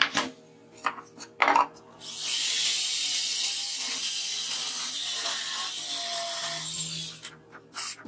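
A few short knocks of plywood sheets being handled, then a DeWalt 18V XR cordless drill runs for about five seconds, cutting a countersink into plywood with a steady high hiss and a thin motor whine. It stops about seven seconds in.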